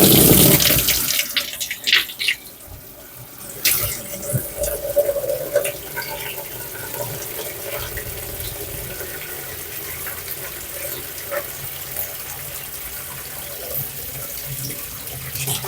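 Water running and splashing into the wash tub of a semi-automatic washing machine as it is filled for a drain test. There is a loud gush at the start, then a steady flow.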